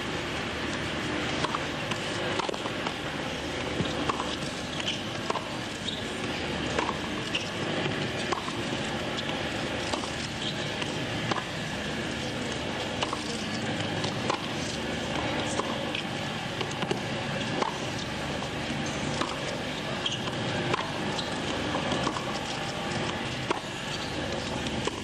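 Tennis rally on a hard court: a tennis ball struck by rackets and bouncing, one sharp pop roughly every second, over a steady low crowd murmur.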